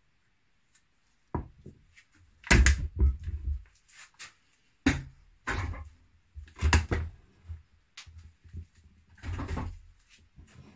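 Wooden parts and bar clamps being picked up and set down on a wooden workbench: a string of irregular knocks and clunks, with a longer scraping sound near the end as the log-section box is slid across the bench.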